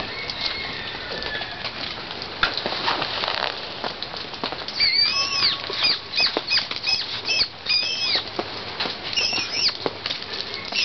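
Sheltie-mix puppy squealing excitedly, a run of short high-pitched yips about two a second starting about five seconds in, over scattered rustling and pattering.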